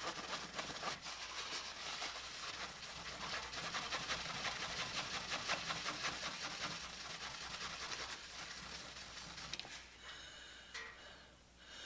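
A cloth rag scrubbing rapidly back and forth over a plastic multimeter case, rubbing off permanent marker with a mild soap solution. The scrubbing stops about nine and a half seconds in, followed by a few faint small handling sounds.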